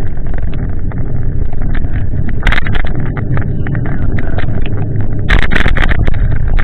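Wind and rain buffeting a bicycle-mounted camera's microphone while riding along a wet path: a loud, steady rumble with many small clicks and knocks from the rattling handlebar mount. Louder clattering comes about two and a half seconds in and again from about five seconds in.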